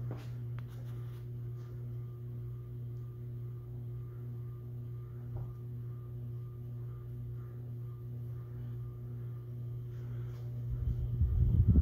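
Crest 4500 Series 52-inch ceiling fan (1992) running, its motor giving a steady hum with a faint tone that pulses at an even rate. A louder low rumble comes in near the end.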